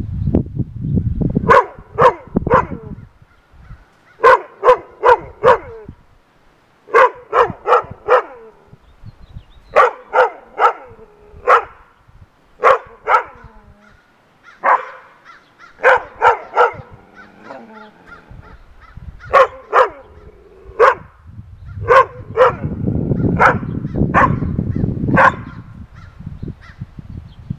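Rough collies barking in bursts of two to four loud barks, with short pauses between the bursts. A low rumble sits under the barks near the start and again near the end.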